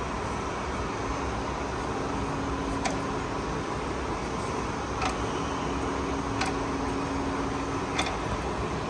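Correa F2UE universal milling machine running its table power feed, a steady mechanical hum, with four sharp clicks as the feed-rate selector dial is turned to a higher feed rate.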